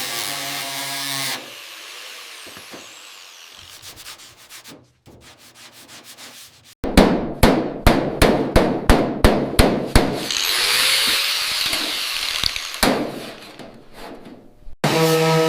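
Workshop tool sounds in quick succession: scraping and sanding, then a loud run of rapid sharp taps, about four a second, like hammering, then a steady high hiss.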